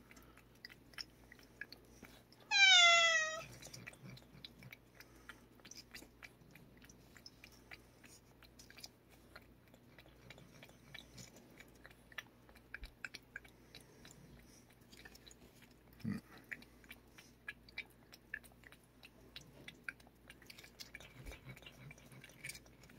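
A cat licking paste from a squeeze-tube treat, with many small wet lapping clicks. About two and a half seconds in, the cat gives one loud meow of about a second that falls in pitch. A soft thump comes about sixteen seconds in.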